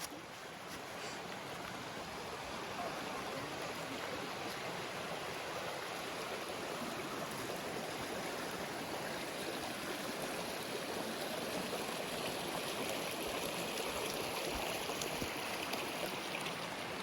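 Mountain stream rushing steadily, getting a little louder over the first few seconds.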